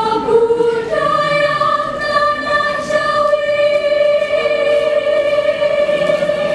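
School choir singing, settling about a second in onto one long held note.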